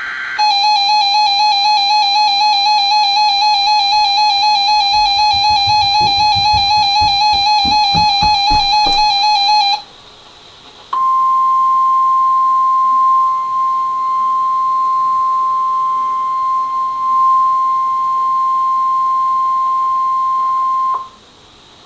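Weather radio alert tones: a warbling alarm tone for about nine and a half seconds, with a few low knocks under it. After a short gap comes the NOAA Weather Radio steady 1050 Hz warning alarm tone, held for about ten seconds, the signal that activates tone-alert receivers.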